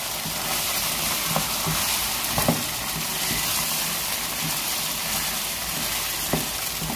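Beef mince and ground spices sizzling in hot oil in a non-stick wok while a spatula stirs it, with a few short knocks and scrapes of the spatula against the pan.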